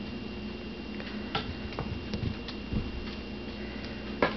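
Scattered light clicks and taps from a kitten pouncing at a dangling wand toy on carpet, the loudest one near the end, over a steady background hum.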